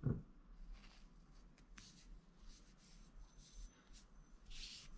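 Faint rustling and rubbing of kinesiology tape and hands against skin as the tape is stretched and wrapped around a wrist, with a soft thump at the start.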